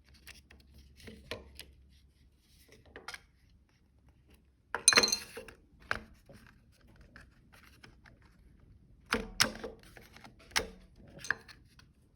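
Scattered clicks, knocks and clatter of small hard parts and tools being handled and set down on a workbench, with the loudest burst of clatter about five seconds in and a few more knocks near the end.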